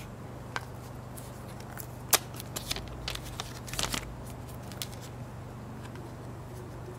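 Hard plastic Apple EarPods case being handled and turned over in the hands: scattered sharp clicks and taps, the loudest about two seconds in and a cluster between two and a half and four seconds, over a steady low hum.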